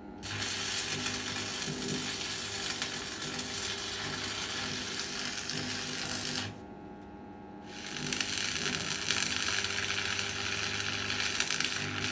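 Stick (arc) welder crackling as the electrode burns onto steel plate and pipe, over a steady low hum. The arc breaks off for about a second just past the middle, then is struck again and crackles on.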